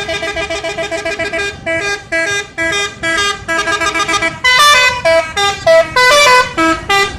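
A bus's 'telolet' musical horn, a set of tuned horns played as a quick melody of short notes: a rapid trill at first, then separate notes, growing louder about four seconds in.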